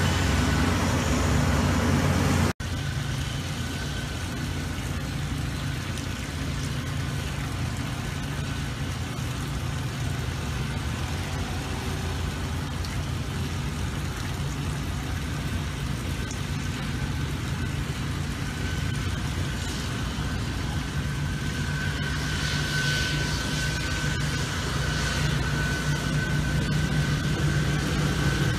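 Engines of golf-course maintenance machines running steadily: a ride-on reel mower close by, then, after a dropout for an instant about two and a half seconds in, walk-behind mowers and an aerator. A thin, steady high whine comes up in the last third.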